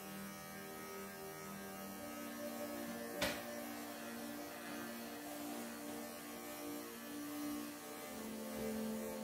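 Bravura cordless electric pet clippers running with a steady hum, its pitch wavering a little as the blade works through a Persian cat's matted coat. There is a single sharp click about three seconds in.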